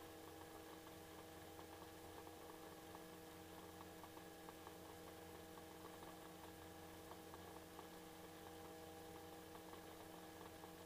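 Near silence: a faint steady hum on the helicopter's intercom audio feed, with scattered faint ticks.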